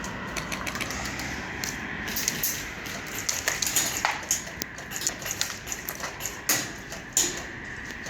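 Airsoft gunfire in close quarters: irregular sharp cracks of shots and BB hits, sparse at first, then coming thick and fast from about two seconds in.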